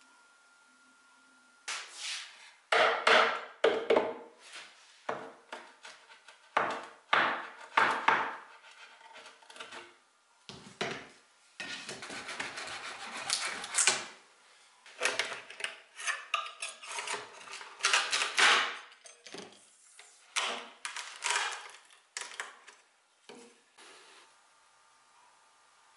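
Old glued wooden joints of an antique Biedermeier chair being worked loose by hand and with a metal scraper: an irregular run of wooden knocks, creaks and scraping, with a longer stretch of rubbing about halfway through.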